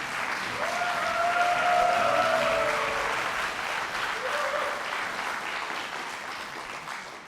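Audience applauding, with a couple of brief held tones over the clapping in the first few seconds; the applause dies down near the end.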